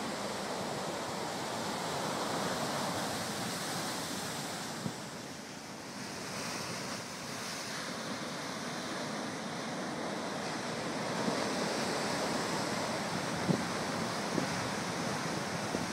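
Ocean surf breaking and washing onto the shore: a steady rushing that swells and ebbs as the waves come in, with a few small knocks.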